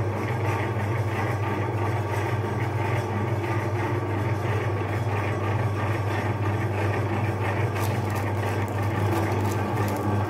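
Electric meat grinder running with a steady low motor hum. In the last couple of seconds a crackling comes in as the frozen ice cream bar is broken up by the auger.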